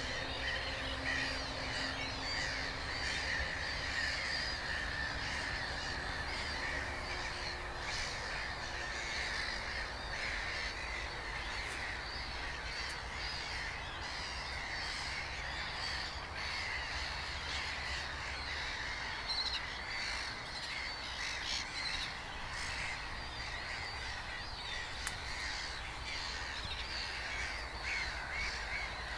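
Breeding colony of Mediterranean gulls and black-headed gulls calling: many harsh, overlapping calls with no break.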